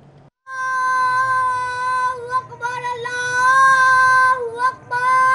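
A boy calling the adhan, the Muslim call to prayer, in a high voice with long held notes broken by a few short pauses. His voice starts about half a second in.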